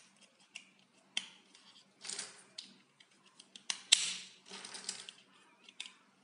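Hard plastic interlocking building blocks being pressed and snapped together by hand: sharp clicks about a second in and twice near four seconds, with plastic rattling and scraping between.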